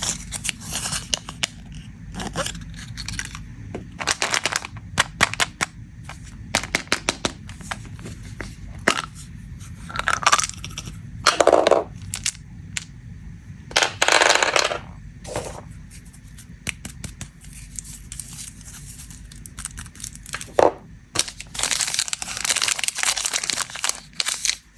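Snack packaging being handled and opened: plastic wrappers crinkling and tearing, with sharp crackles and crunches at uneven intervals over a steady low hum.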